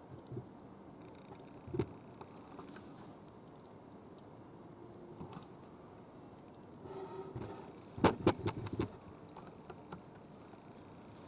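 A quick run of sharp clinks and knocks about eight seconds in, with a single knock near two seconds, over a faint steady background.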